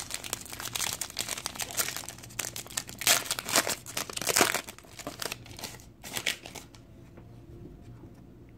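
Foil wrapper of a Panini Diamond Kings baseball card pack crinkling and tearing as it is pulled open by hand. The crackling is loudest around the middle and dies away about two-thirds of the way through.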